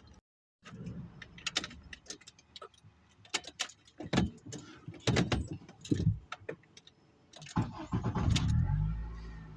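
Keys jangling and scattered clicks and knocks, then a car engine starting about seven and a half seconds in and running steadily.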